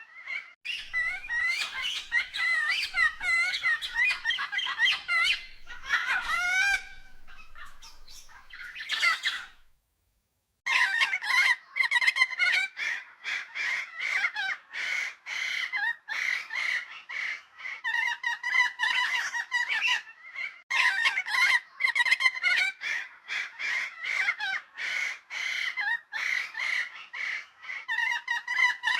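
Birds chattering: a dense run of short, rapid calls repeated over and over, broken by a moment of silence about ten seconds in.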